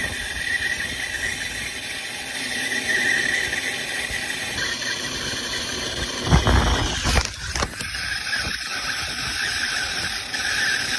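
Turbo torch flame hissing steadily while brazing a new filter drier into the copper refrigerant line, with a few handling bumps about six to seven seconds in.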